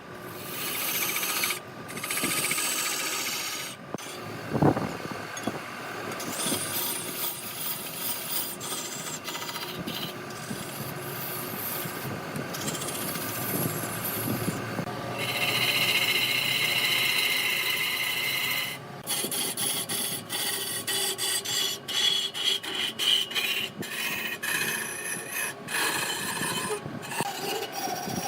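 Woodturning lathe with a tool scraping and cutting against the spinning wood, a rough rasping sound that stops and starts several times, with a higher-pitched stretch about midway through.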